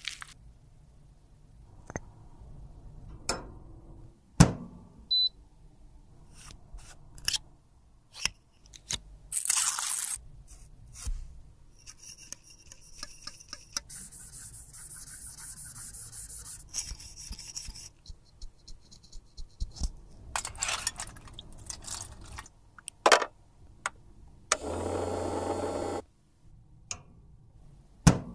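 Close-miked handling of lipstick tubes and small makeup tools: scattered clicks and taps with brief stretches of scraping and rustling, and a steady buzz lasting about a second and a half near the end.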